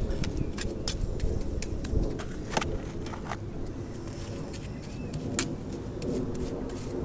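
Scattered light clicks and scrapes as wet lime-and-horsehair mortar is packed and shaped along the underside of an old timber beam, over a steady low rumble.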